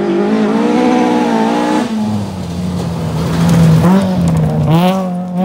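Rally car engine at full throttle as the car approaches on a gravel stage and passes close by. The revs climb, drop sharply about two seconds in, then run hard again, loudest as the car goes past about four seconds in, with brief lifts just after.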